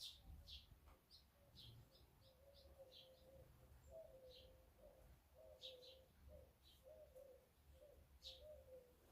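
Faint bird calls: short high chirps repeating every half second or so, joined from about a second and a half in by a lower, wavering call in short repeated phrases.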